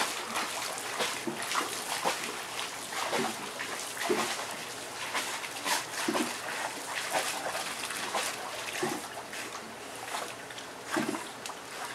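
Dogs swimming and splashing through pool water, with a dog giving short cries every couple of seconds.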